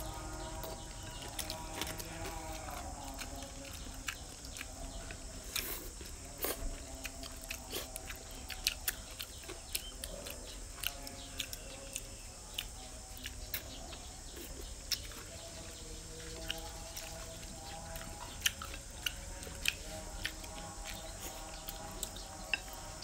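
Close-up eating sounds of rice noodles being slurped and chewed, with many short sharp clicks and smacks scattered throughout. Soft background music with a held melody plays underneath.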